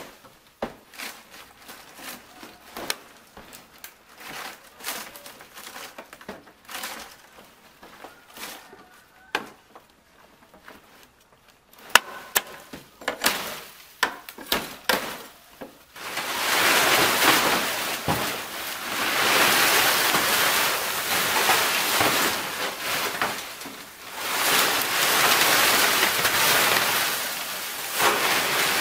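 Dry palm-leaf thatch and a wooden pole roof frame being worked: scattered light knocks, creaks and rustles at first, then from about halfway a loud, continuous crackling rustle of dry palm leaves being torn off and handled in bulk, with a brief lull a few seconds before the end.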